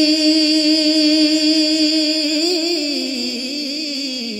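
A man singing a naat through a PA sound system. He holds one long high note, then from about halfway moves into a winding melodic run that drifts down in pitch.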